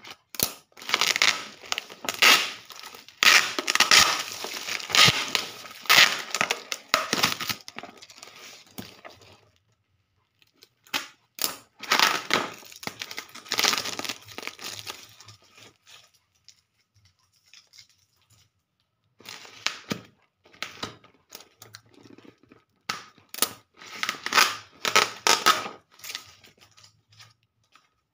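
Plastic parcel wrapping (bubble wrap and clear plastic film) being torn and crinkled by hand. It comes in three long bouts of crackling with short quiet gaps between.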